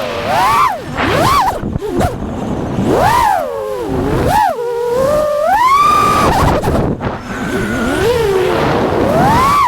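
FPV freestyle quadcopter's motors and propellers whining, the pitch swooping up and down again and again as the throttle is worked.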